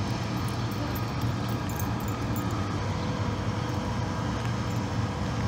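Steady outdoor background noise: a low rumble with a hiss over it. A few faint light clicks in the first couple of seconds.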